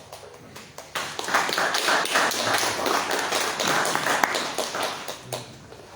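A congregation applauding: dense clapping that starts about a second in and fades out a little after five seconds.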